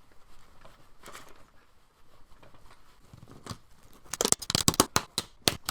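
Faint rubbing of a quick wipe-down, then about four seconds in a rapid run of sharp clicks and scrapes as the hinge cover of a 2011 MacBook Pro 13-inch is fitted back over the hinge.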